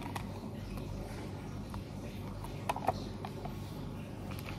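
Quiet room tone: a steady low hum, with a few light clicks or taps just under three seconds in.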